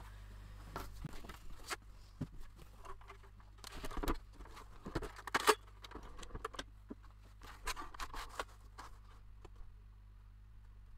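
Plastic paper trimmer being set down and a sheet of kraft card slid and aligned on it: scattered knocks, taps and paper rustles, the sharpest knocks about four and five and a half seconds in.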